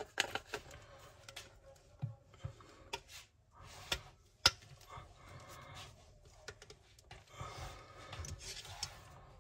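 White PVC pipe fittings being handled and pushed together by hand: scattered plastic clicks, scrapes and light knocks, with one sharper knock about four and a half seconds in.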